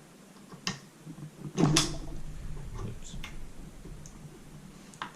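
Handling of an SKS rifle's gas tube lock lever and handguard during disassembly: a few separate clicks and knocks of metal and wood parts, the loudest about a second and a half in.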